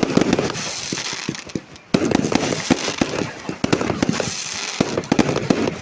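Fireworks display going off: rapid, dense bangs and crackling with a hiss between them, easing briefly about two seconds in before picking up again.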